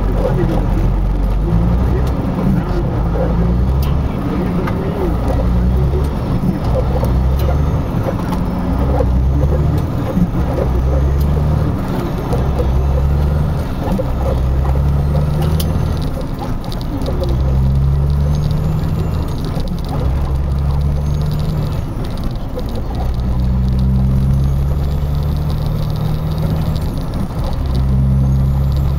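A vehicle driving slowly over a rough, potholed dirt road, heard from inside the cab. Its engine and tyre rumble is low and steady and swells and eases every few seconds, with scattered rattles and knocks as it goes over the bumps.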